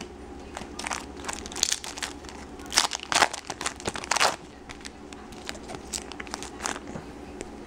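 Foil wrapper of a baseball card pack being torn open and crinkled by hand: a run of crackling rustles, densest about halfway through, then thinning out.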